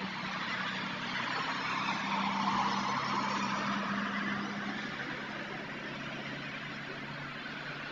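A car driving past on the street, its tyre and engine noise swelling to a peak about two to three seconds in and then fading, picked up by a security camera's built-in microphone. A steady low hum runs underneath.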